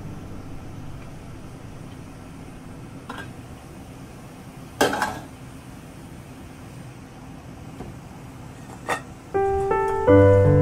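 Pot of water boiling on a gas stove, with a few knocks and one loud clank of its metal lid being lifted off and set down about halfway through. Piano music comes back in near the end.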